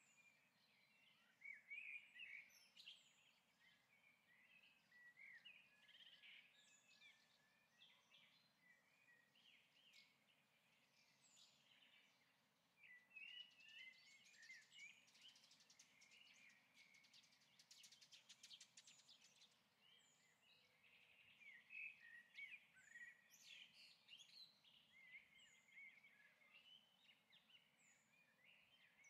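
Near silence with faint bird chirps and short falling calls scattered throughout, and a brief patch of fine, rapid clicking a little past the middle.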